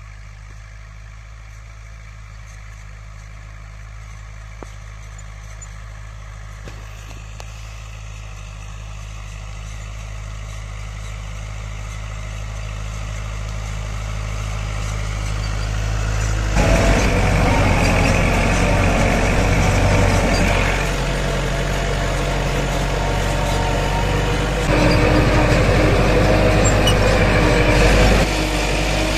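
Diesel engine of a farm tractor pulling a corn planter, growing steadily louder as it approaches over the first half. About halfway through it jumps to a loud, close-up engine sound heard from on board, with a louder stretch near the end.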